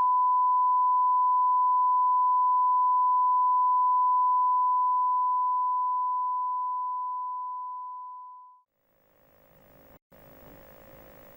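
A broadcast off-air tone: a single steady sine tone held for about four seconds, then fading away and gone by about eight and a half seconds in. After a moment of silence a faint hum and hiss comes up.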